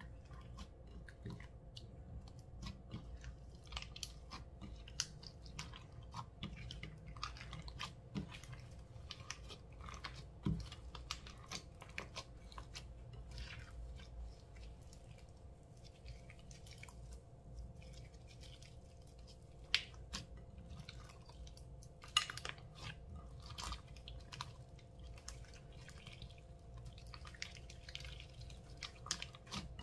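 Slime being squished and mixed, with irregular sticky crackles and small pops throughout and a couple of louder snaps about twenty seconds in.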